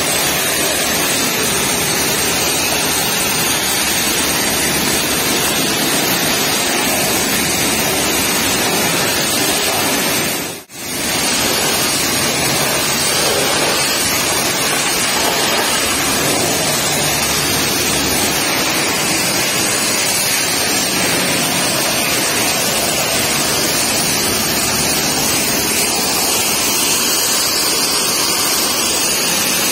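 High-pressure water jet from a pressure-washer lance spraying against the tarpaulin curtain side of a truck trailer: a steady, loud hiss that drops out briefly about ten seconds in.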